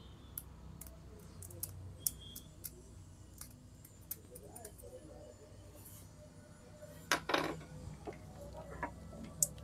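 Faint scraping and small scattered clicks of a thin metal pick scraping a tiny resistor clean between the fingers, with a brief louder rustle about seven seconds in.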